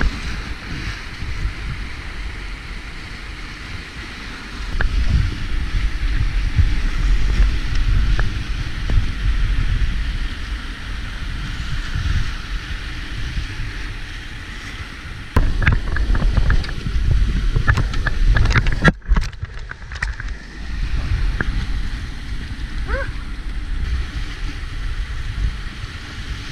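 Whitewater rapids rushing and splashing around a kayak, with heavy low buffeting on the microphone in two stretches, about a fifth of the way in and again past halfway. The sound briefly cuts out partway through the second stretch.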